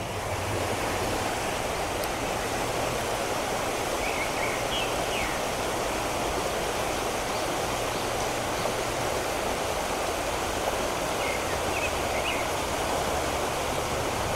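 Creek water rushing steadily over a shallow, rocky riffle.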